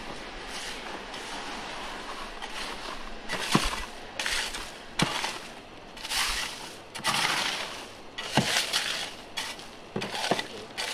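Crushed ice crunching and scraping as a metal pole digs and pokes through it in an ice chest. From about three seconds in it comes as a string of short scrapes and sharp clicks, roughly one a second.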